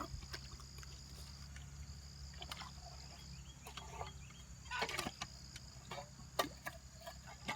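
Backhoe digging: short, scattered clicks and scrapes of the bucket in dirt and rock over a low, steady hum.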